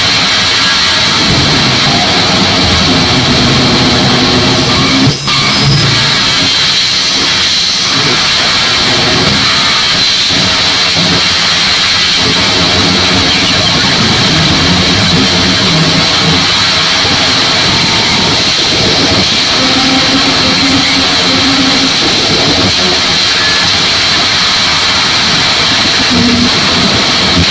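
Live harsh digital noise: a loud, unbroken wall of distorted electronic noise with a steady high hiss and shifting, grinding lower textures, broken by one brief cut about five seconds in.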